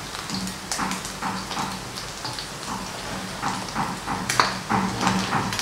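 Chicken skins frying in hot rendered chicken fat in a wok: an irregular, rain-like crackling and popping as the skins crisp, with one sharper pop about four seconds in.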